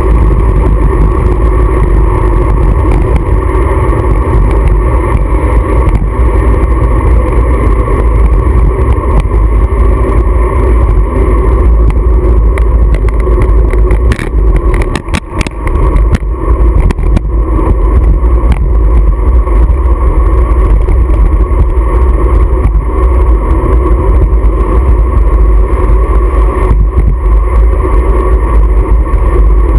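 Loud, steady wind rushing over a handlebar-mounted GoPro's microphone during a fast bicycle descent, with a brief dip and a few knocks about halfway through.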